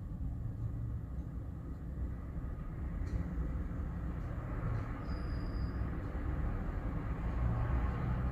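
Strong wind buffeting the microphone: a low, gusting rumble that swells and eases.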